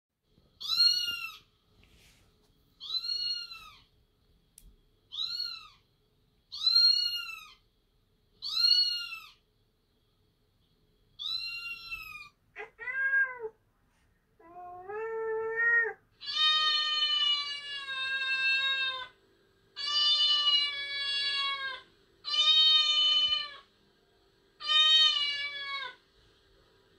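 Cat meowing: six short, high-pitched meows about two seconds apart, then two brief lower calls, then four long drawn-out meows lasting one to three seconds each.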